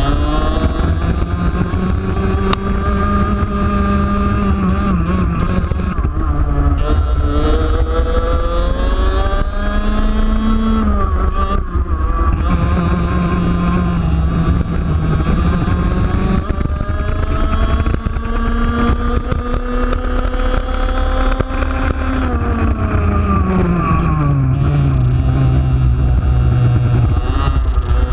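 Racing kart's 125cc two-stroke TaG engine at racing speed, heard onboard. The revs climb along the straights and drop off into the corners several times, with one long climb through the middle and a steep drop near the end, over a heavy low rumble.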